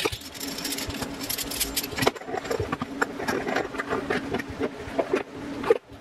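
Rapid, busy clicking and clattering of a metal microphone boom arm's parts being handled and fitted together, in sped-up footage, over a steady hum; the sound drops out briefly near the end.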